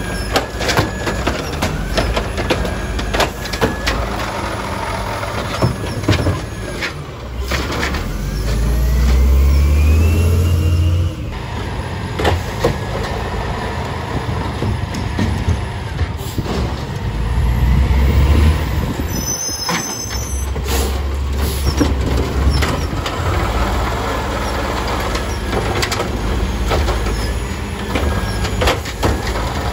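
Automated side-loader garbage truck working a recycling route: the diesel engine revs up several times to drive the hydraulic arm as it lifts and empties a recycling cart, with knocks and clatter of the plastic cart against the arm and hopper, and the truck pulling forward to the next cart.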